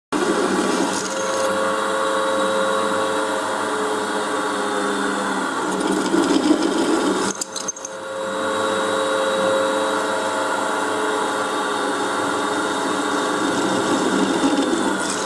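Bench drill press running steadily with a constant motor hum as its twist bit drills into a steel plate. The sound gets rougher for a moment past halfway, drops briefly, then carries on.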